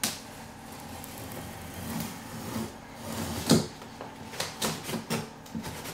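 Scissors slitting the packing tape along the top of a cardboard box, a scraping run of cutting with a sharp knock about three and a half seconds in and a string of smaller clicks and taps toward the end.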